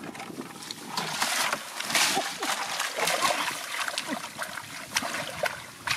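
Hands splashing and sloshing through shallow muddy water, feeling for fish in the mud: irregular splashes and wet slaps throughout.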